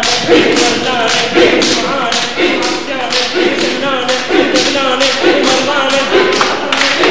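A group of people clapping their hands in a steady, quick rhythm, about three claps a second, while several voices sing together over the beat.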